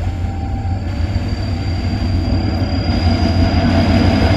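Two diesel-electric locomotives in double-header hauling a long freight train past, the engines' deep rumble growing louder as they approach, with a thin steady high whine above it.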